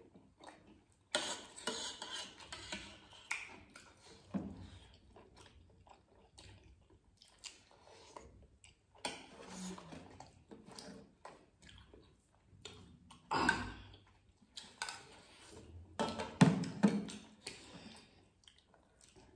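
Mealtime eating sounds: chewing, with spoons clinking and scraping on metal plates and small bowls. Several louder clusters of clinks and knocks stand out, the loudest near the end.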